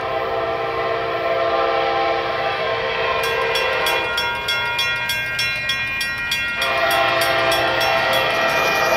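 Diesel locomotive's multi-chime air horn blowing for a grade crossing: a long blast, a break about four seconds in, then the horn again from near seven seconds. From about three seconds in, the crossing's warning bell dings rapidly and evenly over the horn.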